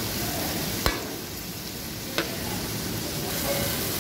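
Chopped tomatoes, onion, garlic and ginger sizzling as they sauté in butter in a metal pot, stirred with a metal spoon, with two sharp knocks of the spoon against the pot, about a second in and again past two seconds.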